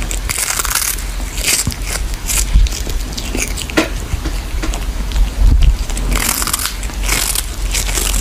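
A cat chewing a whole small fish held in its paws, making a series of irregular wet crunches as it bites through the fish.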